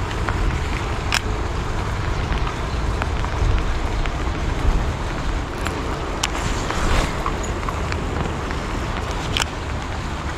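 Steady rain falling on water, with a low rumble underneath and three sharp ticks spread through it.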